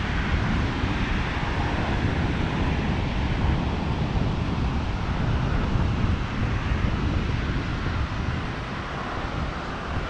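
Wind rumbling on the microphone over the steady wash of ocean surf on a sandy beach, easing slightly near the end.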